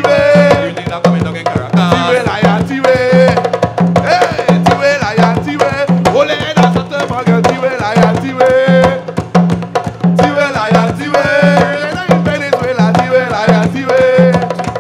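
Live hand-drum ensemble playing skin-headed hand drums in a steady rhythm, with a low bass stroke about twice a second. Voices sing over the drums.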